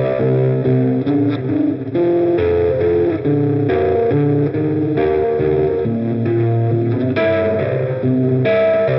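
Electric guitar played through the ADD Transformations fuzz pedal, a gritty distorted tone, strumming chords and single notes that change every half second or so.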